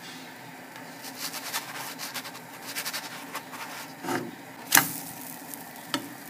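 Pancake batter cooking in a hot buttered pan: a soft steady hiss with scattered fine crackles, and a few louder sharp clicks about four to five seconds in.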